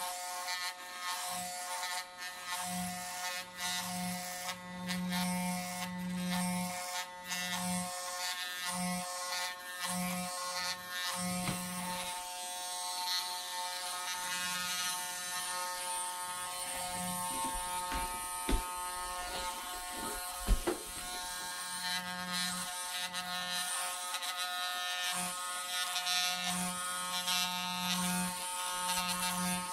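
Electric hair clippers buzzing steadily while cutting hair, with a lower hum that comes and goes. Two sharp knocks sound in the second half.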